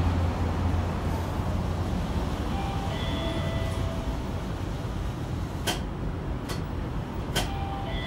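Hiroshima Electric Railway 5100-series low-floor tram no. 5108 in motion, heard from inside the car. There is a steady rumble, with brief high whining tones that come and go, and three sharp clicks in the second half.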